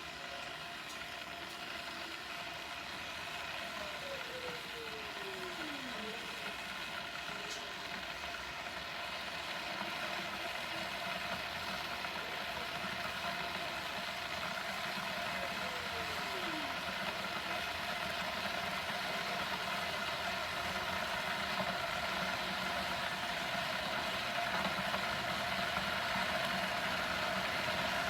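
Ninja KT200 electric kettle heating water: a steady rumbling hiss that grows slowly louder. Two faint falling tones pass through it.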